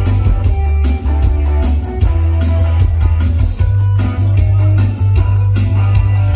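Live rock band playing loud: electric guitars, electric bass and drum kit, with a steady beat of about four drum strokes a second over a heavy bass.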